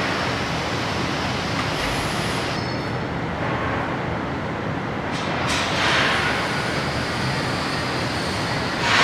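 Power saw cutting square tubing into short spacers: a steady grinding rush, easing off for a couple of seconds and swelling again about six seconds in and near the end.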